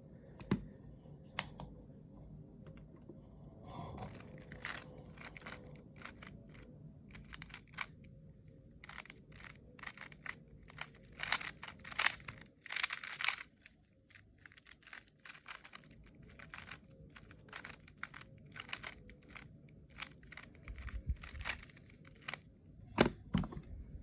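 GAN 15 MagLev 3x3 speedcube being turned fast through a solve: clusters of rapid clicking layer turns with short pauses between them, and a couple of louder knocks near the end.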